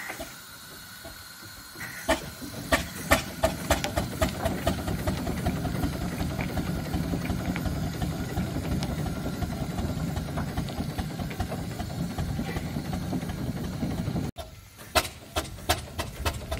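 Fowler steam roller's engine working as the roller moves, a rapid run of exhaust beats and mechanical clatter that grows louder about two seconds in and then runs on steadily.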